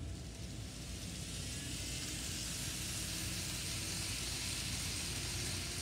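N scale model Amtrak passenger train running past on the track: a steady hissing whir of its wheels and motor that grows louder about half a second in.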